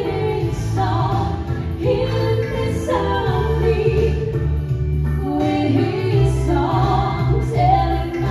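Two women singing a song together into handheld microphones, amplified through a PA, over instrumental accompaniment with a steady bass line.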